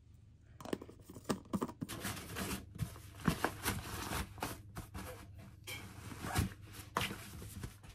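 Handling noise: a run of light clicks and knocks over rustling, starting about half a second in and going on irregularly.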